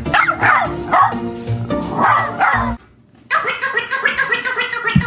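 A small terrier barks and yips in short bursts over background music. About three seconds in the sound drops out for a moment, then only the music carries on.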